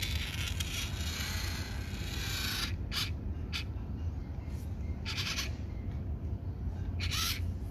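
Blue transforming robot car toy whirring in repeated bursts as its motor and gears fold it between car and robot form: a long whir at the start, two short ones, then two more, over a steady low hum.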